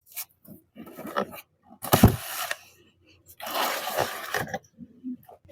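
Packaging being handled and torn open in irregular bursts of rustling, with a sharp knock about two seconds in.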